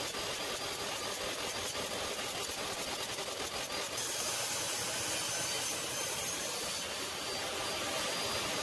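Jobsite table saw running steadily, its blade ripping cedar blanks into strips, a little louder from about four seconds in.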